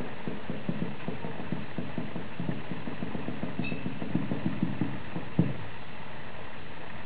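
Pages of a photographic flipbook slipping off the thumb one by one, a quick run of soft paper ticks, several a second, ending with a single louder knock about five seconds in.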